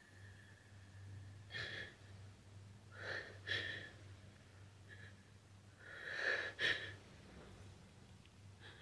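Woman crying: a string of short, uneven sobbing breaths and sniffles, the loudest a little past six seconds in.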